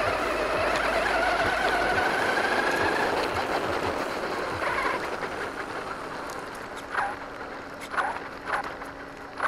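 Radio-controlled truck driving over dirt and gravel, heard from its own chassis: motor and gear whine rising and falling with the throttle over tyre noise. It eases off after about five seconds, and then comes short throttle blips about once a second.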